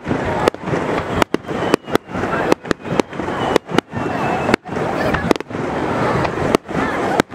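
Aerial fireworks shells bursting in quick, irregular succession, sharp bangs about one to two a second over a constant dense wash of noise, with faint crowd voices underneath.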